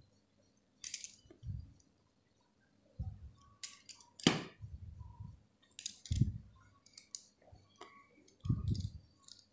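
Kitchen handling sounds as dough is worked on a wooden board with a pizza cutter: about half a dozen soft thumps and scattered sharp clicks and light clinks, the sharpest click about four seconds in.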